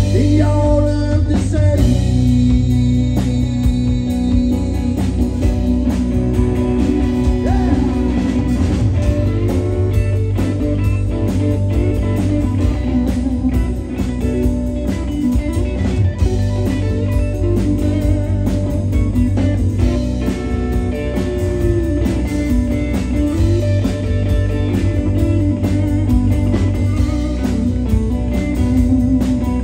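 Live blues-rock band playing an instrumental passage: electric guitars over bass and drum kit, with bending lead guitar lines.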